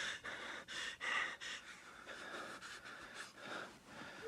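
A person panting: quick, heavy breaths about two a second, growing softer in the second half.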